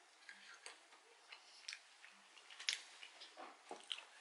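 Faint, scattered crunching clicks of a person chewing roasted peanuts, irregularly spaced.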